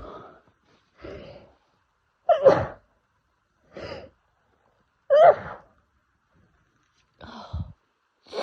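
Allergy sneezing fit: quick gasping in-breaths between sneezes, with two loud sneezes about three seconds apart. More short gasps come near the end.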